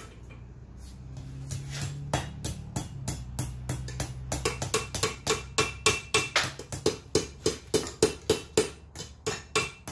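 Hand hammer striking hot steel on an anvil in a steady rhythm of about three blows a second, knocking the bar's end back over the anvil edge to curl it into a bottle-opener hook. Background music plays underneath.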